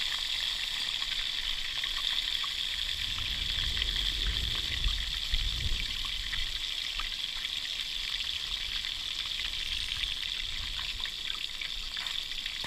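Whole grunt frying in hot oil in a small frying pan: a steady sizzle with scattered pops and crackles. Wind rumbles on the microphone around four to six seconds in.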